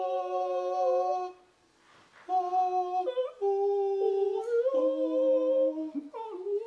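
Two voices singing long wordless held notes together in harmony, sliding from one note to the next. They break off for about a second, then start again and shift pitch several times.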